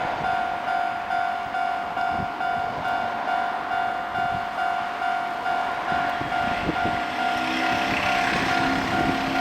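Japanese railway level-crossing alarm ringing its electronic 'kan-kan' bell in a steady, rapid, even rhythm, over the rumble and irregular clacks of a train passing over the rails.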